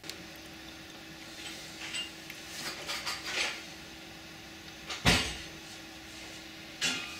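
A steady low hum with some rustling, a loud thump about five seconds in, and a sharper knock near the end.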